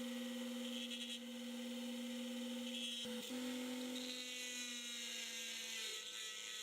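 Small electric power tool running at a steady speed with a high hiss, cutting out for a moment about three seconds in and then running on with its pitch sagging slightly.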